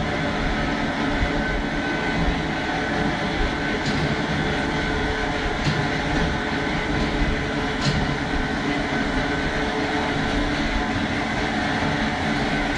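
Automated hospital transport cart running along a tiled tunnel: a steady mechanical rumble with a faint high steady tone. A few light clicks come about 4, 6 and 8 seconds in.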